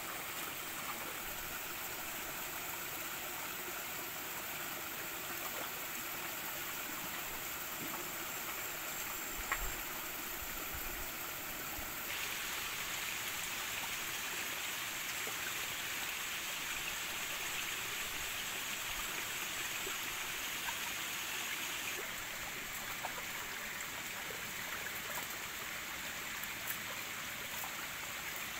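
A small stream running steadily over rocks, its rushing getting louder about twelve seconds in and softer again about ten seconds later. One faint knock about nine seconds in.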